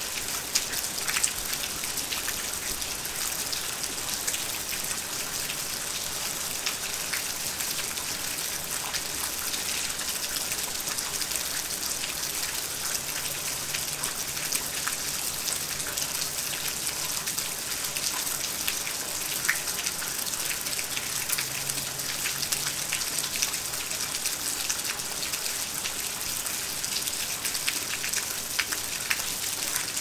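Steady rain falling, with many sharp individual drop hits.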